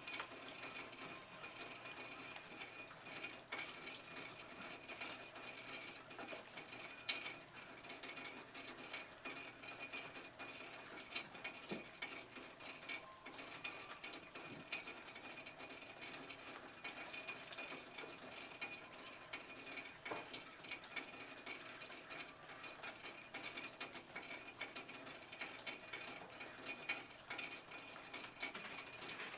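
Faint crackling background with a steady thin high tone and a couple of sharper clicks. Short runs of very high, thin chirps come a few times in the first ten seconds.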